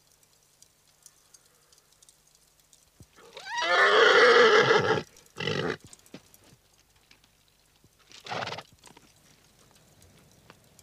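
A horse whinnying loudly for nearly two seconds, then a short second call right after. A brief breathy burst follows a few seconds later.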